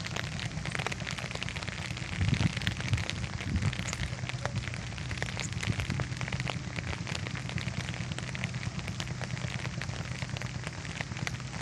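Steady rain falling: a dense, even crackle of drops, over a low rumble that swells briefly about two seconds in.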